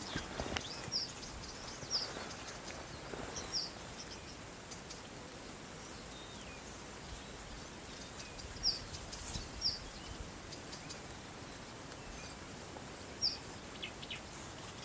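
A small bird giving short, high chirps, single notes a second or several seconds apart, over a faint steady outdoor hiss.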